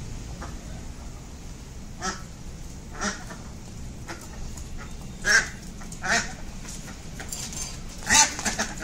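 Domestic duck quacking in short single calls, roughly one a second, as it is chased by someone trying to catch it; the last quack, near the end, is the loudest.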